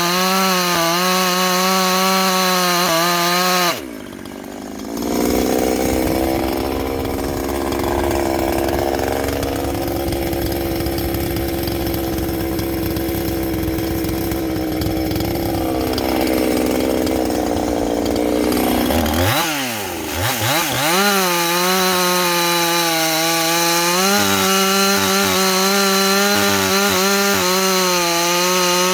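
Ported Husqvarna 350's 49.4 cc two-stroke chainsaw engine at full throttle. About four seconds in, the revs drop sharply as the chain bites into wood, and the saw runs loaded through the cut. Near the end of the cut the revs swoop down and back up, and the saw screams at free-running high revs again.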